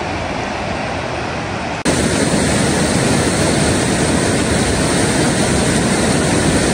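Steady rushing of a fast river over rapids. About two seconds in it becomes suddenly louder and fuller.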